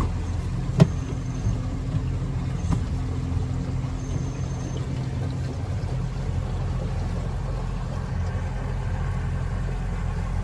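Small boat's motor running steadily at cruising speed, heard from inside the cabin, with a sharp knock about a second in.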